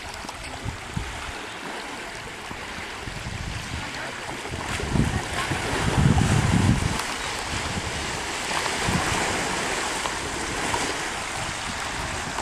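Flowing river water rushing steadily, with a louder, low rumbling stretch about five to seven seconds in.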